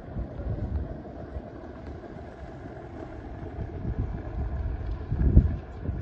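Wind buffeting the microphone in uneven low rumbling gusts, the strongest about five seconds in.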